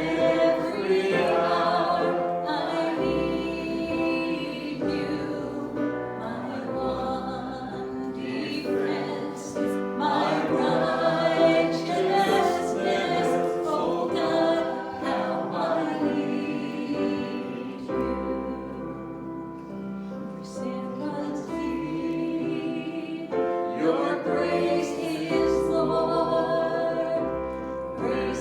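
Congregation singing a hymn together with piano accompaniment.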